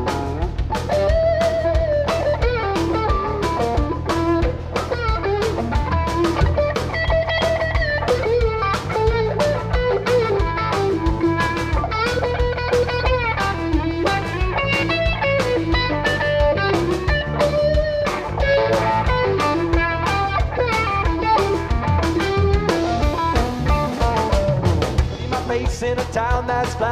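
Live band playing an instrumental passage: electric guitar playing bending lead lines over electric bass and a drum kit.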